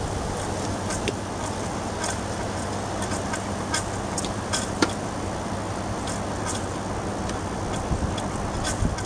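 Window air conditioner running with a steady hum and fan rush, its compressor and fan motor working on a newly fitted dual run capacitor and sounding healthy. Scattered light clicks and taps come from hands working on the cabinet cover.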